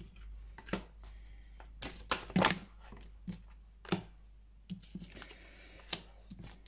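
Oracle cards being drawn from the deck and laid down on a hard tabletop: a series of light taps and slaps of card on card and on the table, the loudest about two and a half seconds in.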